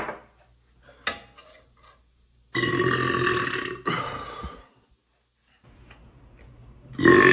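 A man burping loudly: a short burp near the start, then one long, drawn-out burp of about two seconds starting two and a half seconds in, and another loud burp beginning near the end.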